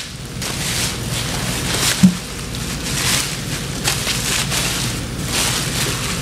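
Plastic garbage bag rustling and crinkling in uneven swells as it is handled and the air is pressed out of it around a frozen bird, with a single short knock about two seconds in.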